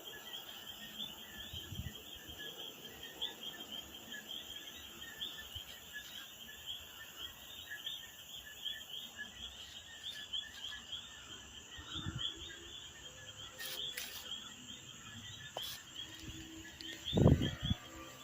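A steady chorus of insects chirping rapidly, with one loud low thump near the end.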